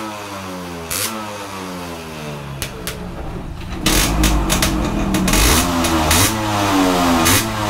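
Yamaha RX100's single-cylinder two-stroke engine being blipped repeatedly, each rev dropping back down in pitch toward idle, with the occasional sharp crack. From about four seconds in it sounds louder and heavier, with more quick rev blips.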